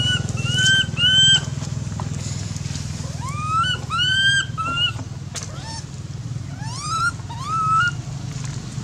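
A baby macaque screaming in distress while its mother holds it: a run of shrill calls, each rising and then held, coming in clusters of two or three. A steady low hum runs underneath.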